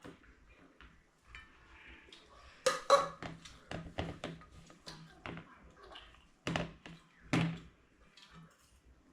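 Kitchen utensils and dishes knocking and clinking as food is dished out: a few irregular sharp taps, the loudest about three seconds in, two more a little past the middle, with faint handling noise between.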